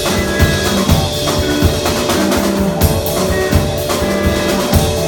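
Loud live music: a drum beat with repeated low thumps under steady held tones.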